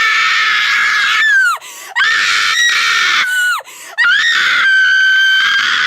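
Adult woman screaming in pain: long, high-pitched screams, each held and then dropping in pitch as it breaks off, with short breaths between them. One ends about a second and a half in, another follows, and a longer one starts near the two-thirds mark.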